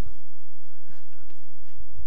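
Chalk writing on a chalkboard, a few short strokes heard about a second in and again near the end, over a steady low rumble.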